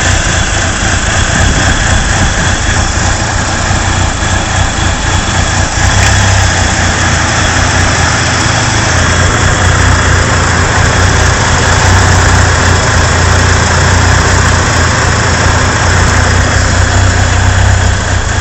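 Engine idling roughly, a steady low rumble that gets a little louder about six seconds in.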